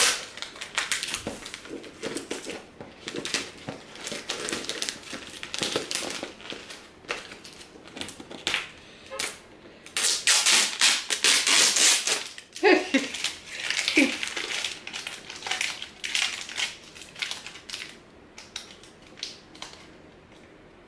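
Plastic stretch wrap and packing tape on a cardboard box crinkling and tearing as it is pulled and cut open with scissors: a run of sharp crackles and clicks, thickest about ten seconds in.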